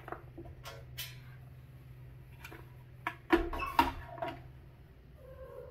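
Light clicks, taps and knocks of hands handling plastic and metal parts while fitting a handle onto a glass grill lid, with a cluster of louder knocks a little past halfway, over a faint steady low hum.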